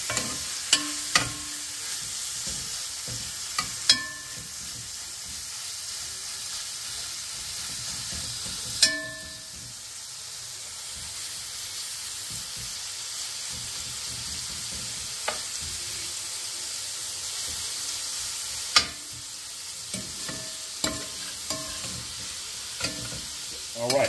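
Chicken thigh pieces browning in hot olive oil in an aluminum pot: a steady sizzle, with a metal spoon clinking and scraping against the pot now and then as the meat is stirred, the pot ringing briefly after the sharper knocks.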